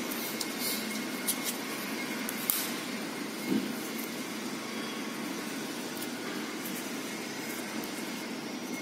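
Hands handling a roll of PTFE seal tape, picking at the tape's end: a few light clicks and taps, the loudest about two and a half and three and a half seconds in, over a steady background hiss.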